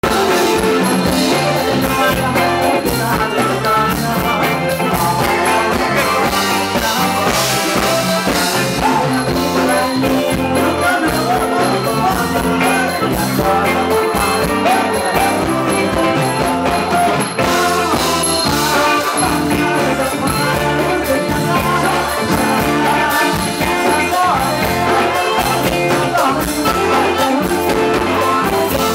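Live band playing loud Thai ramwong dance music, with a singer over drum kit and congas.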